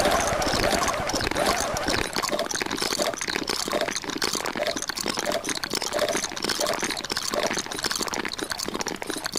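A dense, continuous clutter of many staggered copies of the same short soundtrack playing over one another, so that clicks, taps and wet noises pile into a steady jumble with no single event standing out.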